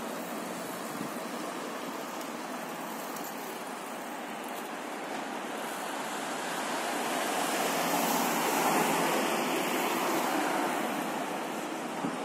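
Street ambience: steady traffic hiss, swelling as a vehicle passes about eight seconds in, then easing off.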